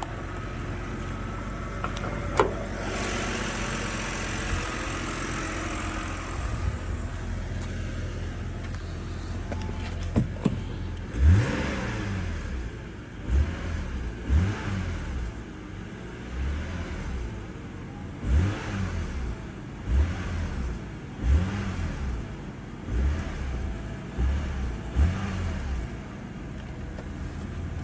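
Car engine idling steadily, then revved in about ten short blips, each rising and falling in pitch, one every second or two. The owner hears a ticking from this engine.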